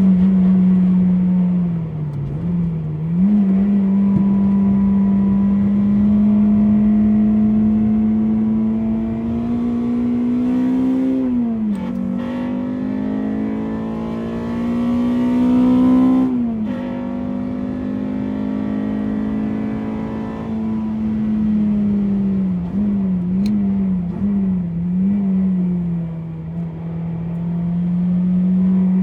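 A Honda Civic EP3's K20A2 four-cylinder engine pulls hard on track, its note climbing slowly and dropping sharply at two upshifts, about twelve and sixteen seconds in. Later the pitch wavers up and down several times, then settles into a steady note.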